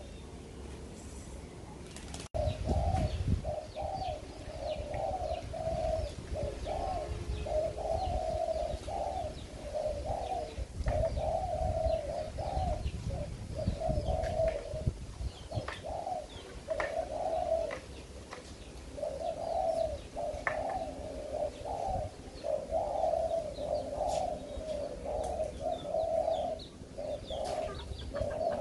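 Caged spotted doves (cu gáy) cooing in a cooing match, their deep coo phrases following one another almost without pause. A low rumble rises and falls underneath at times.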